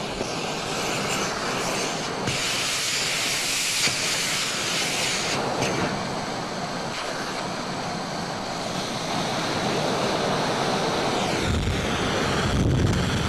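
Science-fiction sound effect from a 1958 record: a shifting, hissing wash of noise. It swells into a brighter, sharper hiss about two seconds in, drops back near five seconds, and a deep rumble builds near the end.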